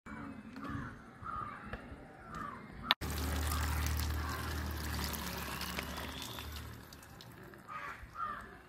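Water pouring out of a clay pot into a plastic colander as soaked jackfruit strips are drained: a steady splashing rush that starts suddenly about three seconds in and tapers off near the end. Before the pour, crows caw a few times.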